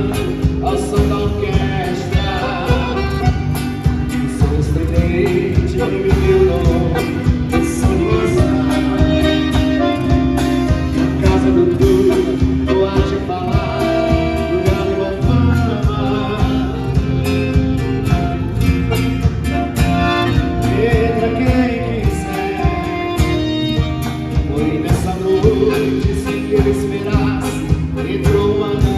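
A song playing: a singing voice over guitar and strings, with a steady beat.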